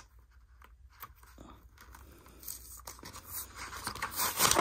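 Paper seal strip being picked at and torn from a cardboard product box by fingers: a few faint ticks at first, then rustling and tearing that grows louder toward the end.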